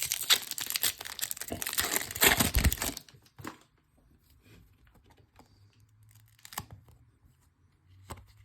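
Trading card pack wrapper being torn open and crinkled for about the first three seconds, then a few faint clicks from handling the cards.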